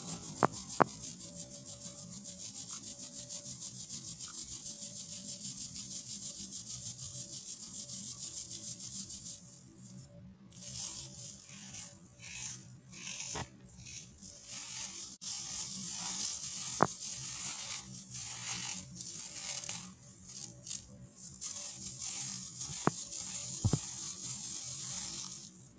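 Fingers rubbing and pressing baking soda through a metal mesh sieve: a fast, steady scratchy rasp of powder on wire mesh for the first several seconds, then slower, irregular scrapes with short pauses. A few sharp clicks come through, twice near the start and again later.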